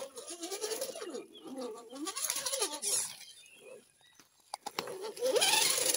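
Electric motor and gears of a Carson RC rock crawler whining, the pitch rising and falling as the throttle is worked, with a gritty crunch of the tyres on gravel swelling twice, about two seconds in and near the end.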